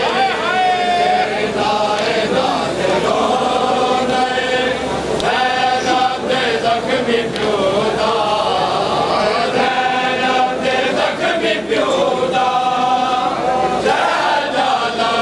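A group of men chanting a nauha, a Shia mourning lament, together in long held, wavering notes, phrase after phrase.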